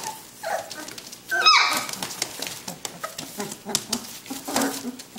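Young puppies play-fighting, giving short yips and whimpers, with one loud high-pitched yelp about a second and a half in. Light scratching and rustling of paws on newspaper runs under the cries.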